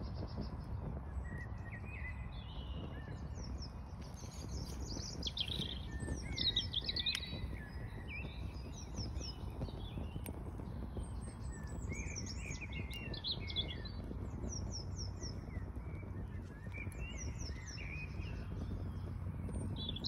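Small songbirds singing and chirping, with short falling trills repeated throughout, over a steady low rumble.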